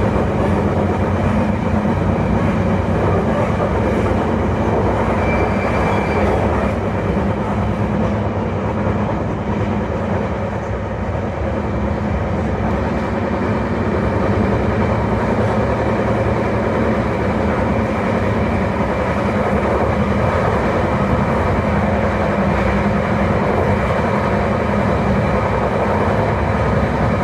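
E721-series electric train motor car MoHa E721-1013 running, a steady continuous rumble with several sustained tones through it. Its running sound is abnormal, which the uploader puts down to the wheels being in bad condition.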